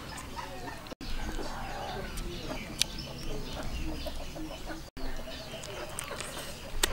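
Domestic chickens clucking on and off, with a couple of sharp smacking clicks from someone eating with her fingers.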